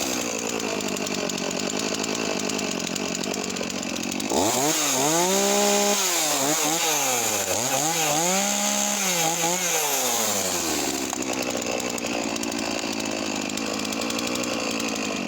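Makita DCS4610 45cc two-stroke chainsaw engine idling, then revved up to full speed and held there. It dips briefly, revs high again with a short blip, and drops back to a steady idle.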